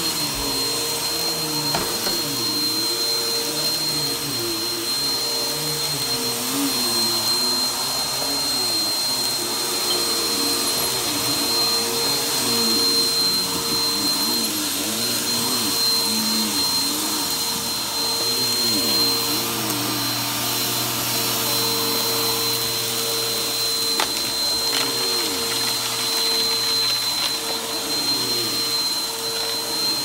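Bagless upright vacuum cleaner running steadily as it is pushed back and forth over carpet, with a thin, steady high whine above the motor's drone.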